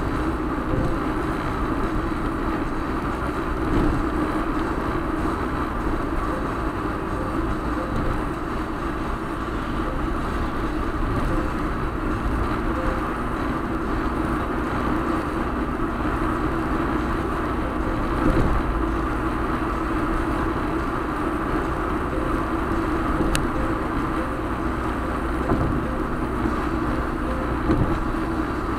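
Steady road noise of a car being driven, with tyre and engine rumble heard from inside the cabin, and a few soft thumps along the way.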